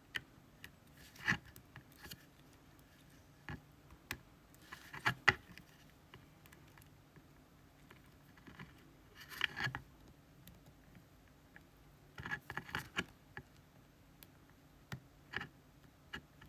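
Scattered light clicks, taps and scrapes of small metal tools handling a disassembled Dorma Kaba GeGe pExtra+ lock cylinder, in short clusters with quiet between.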